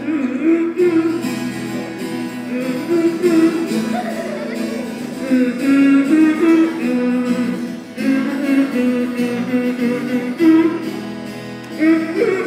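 Worship song sung by a group to an acoustic guitar, the voices carrying the melody over the guitar's chords.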